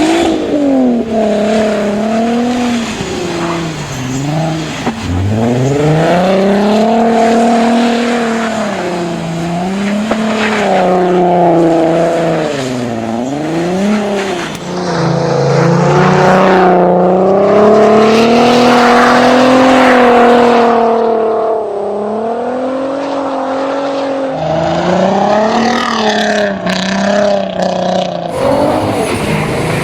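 Volkswagen Golf R32's VR6 engine revving hard, its pitch climbing and dropping again and again as the car is driven sideways on and off the throttle through snow drifts. A rushing hiss of tyres runs over it.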